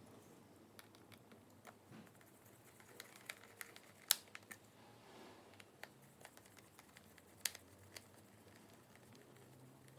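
Faint scattered clicks and taps of small parts being handled by hand, with a sharper click about four seconds in and another about seven and a half seconds in.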